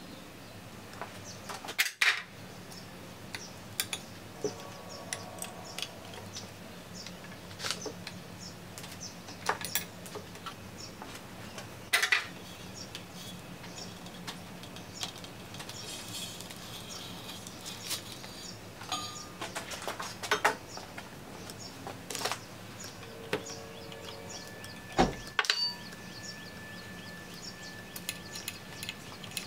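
Scattered metal clinks, taps and knocks from hands and tools handling the cast-iron parts of a 1927 South Bend lathe's horizontal drive assembly as it is taken apart, with the sharpest knocks about 2, 12 and 25 seconds in and a few brief ringing tones.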